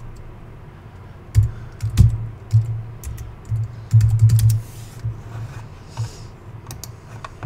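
Typing on a computer keyboard: an irregular run of key clicks with dull low thumps, densest between about one and a half and four and a half seconds in.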